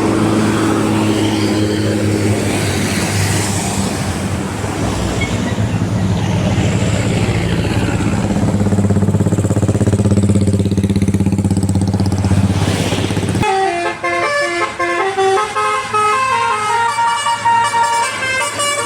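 Bus engine running under load with road noise as a bus passes, then about 13 seconds in a telolet basuri multi-tone horn plays a melody of short stepping notes.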